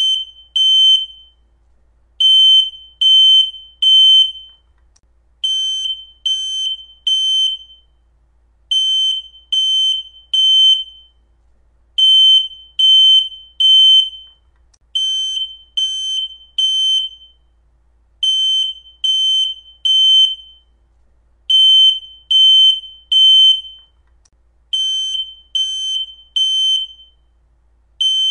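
Smoke detector sounding its alarm: a loud, high-pitched beep repeated in groups of three, each group followed by a short pause and coming round about every three seconds. This is the temporal-three evacuation pattern that signals smoke or fire, not a low-battery chirp.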